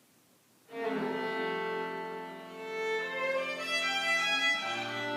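A string quartet of two violins, viola and cello comes in after a brief silence about a second in, playing sustained bowed chords. A low cello note enters near the end.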